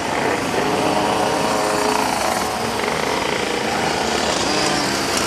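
Pocket bike engines buzzing on the circuit, their pitch rising and falling as the riders rev and ease off.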